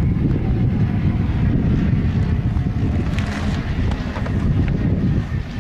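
Wind buffeting the microphone in a loud, uneven rumble, with the drone of a light propeller aircraft's engine underneath. The rumble cuts off suddenly at the end.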